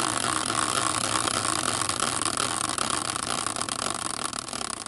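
Spinning prize wheel clicking rapidly as it turns. The ticks begin to slow and spread out near the end.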